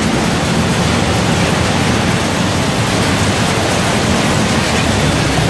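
Almond processing machinery running: a loud, steady, dense noise of the line, with almond shells and kernels moving along its metal channels.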